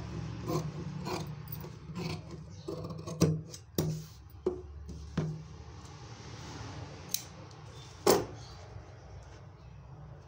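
Large tailor's shears cutting through folded fabric: a run of about eight crisp snips over the first five seconds. About eight seconds in, one louder knock as the shears are set down on the table.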